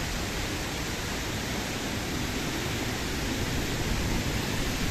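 Steady rush of a waterfall and a stream running over rock, growing slightly louder near the end.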